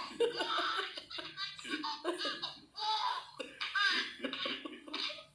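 A woman laughing, in bursts of rhythmic laughter with short pauses between them.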